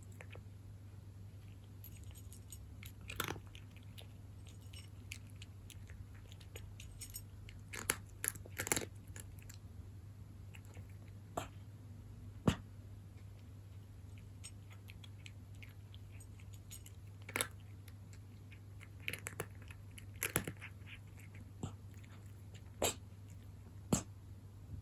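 A cat crunching dry kibble: sharp, irregular crunches every second or two, with a steady low hum underneath.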